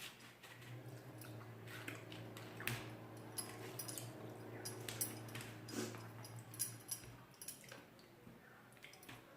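Close-up chewing and eating mouth sounds: scattered wet smacks and clicks, over a steady low hum that fades about seven seconds in.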